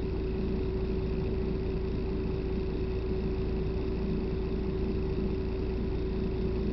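Steady low rumble inside a bus cabin, with a constant hum running over it.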